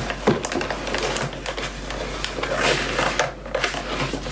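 Plastic bags of kit parts rustling and crinkling as hands rummage through a cardboard box, with many light clicks and knocks.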